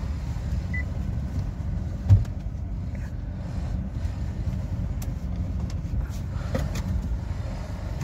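Steering of a 2016 Hyundai i20 Active being turned back and forth at standstill, with a rasping 'khir-khir' noise from the steering column and a single knock about two seconds in. The steering is going hard, which the mechanic puts down to a failing electric power-steering column motor.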